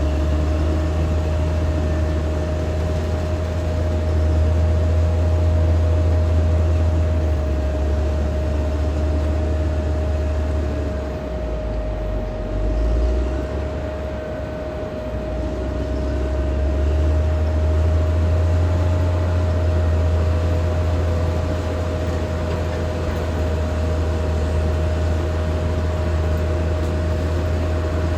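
Caterpillar D6R XL bulldozer's diesel engine running with a heavy low rumble and a steady whine over it. The rumble drops off about halfway through and builds back up a few seconds later.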